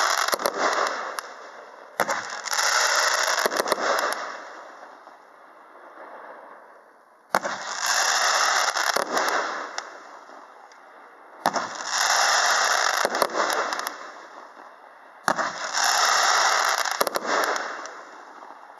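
The Branco, a 108-shot W-shape fireworks compound cake by Evolution Fireworks, firing volley after volley. Each volley opens with a sharp report followed by about a second and a half of dense hissing crackle, and a new volley comes every four seconds or so, four of them starting after the first.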